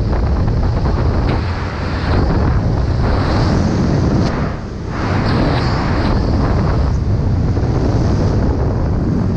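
Airflow buffeting the microphone during a parachute descent under an open canopy: loud, steady wind rumble that eases briefly about four and a half seconds in.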